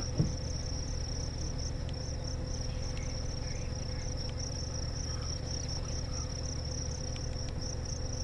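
Insects trilling steadily in high-pitched, evenly pulsing song across prairie grassland, over a low steady hum, with a single brief knock just after the start.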